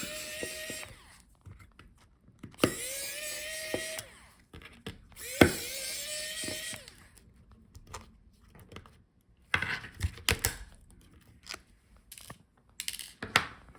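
Small electric screwdriver running in three short bursts, backing out the tiny screws that hold a laptop touchpad, its motor whine rising as each run starts. After the runs come a few light clicks of handling.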